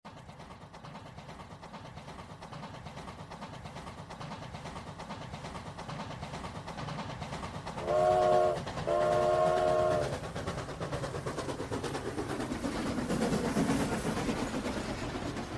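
A train running with a steady rumble, sounding its horn in two blasts, a short one about eight seconds in and a longer one right after.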